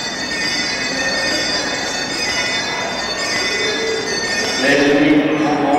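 Small church bells ringing in a sustained peal, a cluster of high steady tones. Voices come in near the end.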